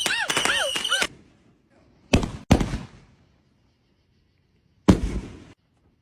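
Consumer fireworks going off: about a second of dense crackling with a high steady whistle, then sharp bangs that trail off as they echo, two in quick succession about two seconds in and another near the end.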